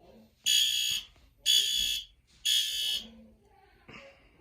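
System Sensor SpectrAlert Advanced fire alarm horn sounding the temporal-3 evacuation pattern: three half-second buzzy blasts about a second apart, a pause of about a second and a half, then the next group begins near the end. The horn is sounding because the pull station has been activated.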